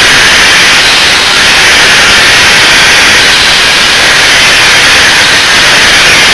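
Angle grinder cutting through metal on a heat pump's coil end, running steadily and loud under load.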